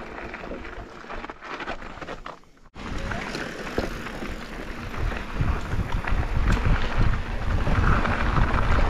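Mountain bike descending a dirt trail: wind buffeting the microphone with tyre and bike rattle over the ground, growing louder from about halfway as speed builds. A brief drop almost to silence comes a little under three seconds in.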